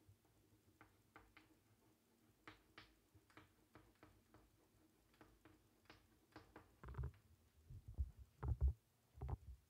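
Chalk writing on a blackboard: a scatter of faint short taps and clicks as the letters are formed. This is followed by a few louder, dull thumps in the last three seconds.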